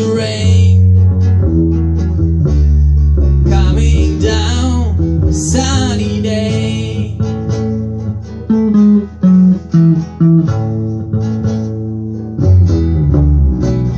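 Acoustic guitar strumming chords over a bass guitar line, played live by a small band.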